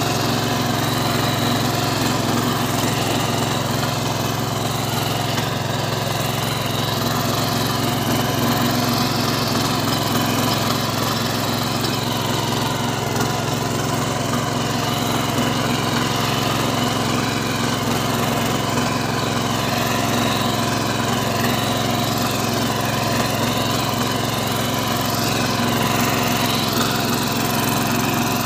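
Small single-cylinder petrol engine of a 7.5 hp power tiller running steadily under load while its rotary tines till the soil.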